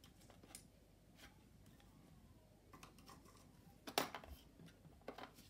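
Faint scattered clicks and light knocks of the Stokke Xplory stroller's brake pedal parts being handled and pulled apart, with one sharp, louder click about four seconds in and two more near the end.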